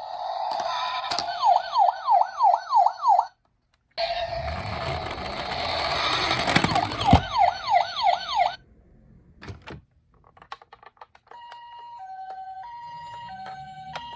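Electronic siren sounds from toy police cars and ambulances: a fast, repeating yelp-style wail in two bursts with a short break, then a few clicks, then a two-tone high–low ambulance-style siren alternating steadily near the end.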